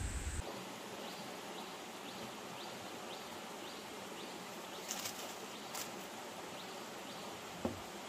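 A low rumble that cuts off abruptly in the first half second, then a steady stream-side hiss with a faint high chirp repeating about twice a second. Two brief dry crackles about five and six seconds in come from thin plant strips being handled, and there is a small click near the end.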